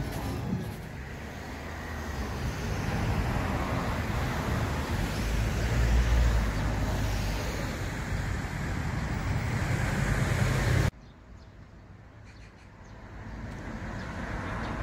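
Road traffic noise: a continuous low rumble of passing vehicles with tyre hiss, swelling to its loudest about six seconds in. It cuts off abruptly about eleven seconds in, and quieter traffic noise builds up again near the end.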